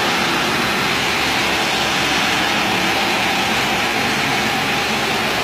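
Rotary spinner tool for tile and grout cleaning working over wet ceramic floor tile: a steady, even rush of pressurised water spray and vacuum recovery.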